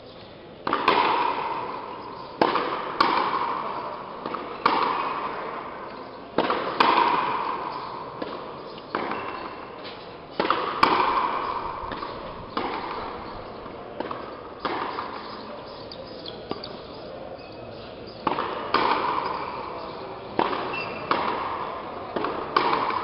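Frontenis rally in an indoor frontón: the ball is struck by stringed rackets and smacks against the front wall, with sharp hits every second or two, often in quick pairs, each one echoing through the hall.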